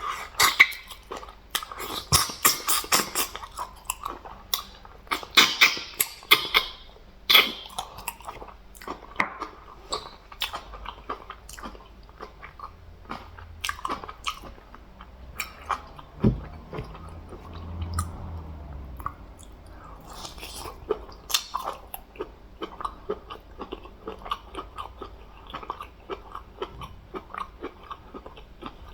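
Close-up mouth sounds of a person chewing and biting food, with crisp crunches, loudest in the first eight seconds and then softer, steady chewing. A low thump about sixteen seconds in.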